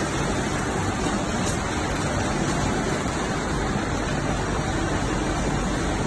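Steady, even machine noise from a running flooring UV coating line (roller coater and UV curing units), with no distinct beat or tone.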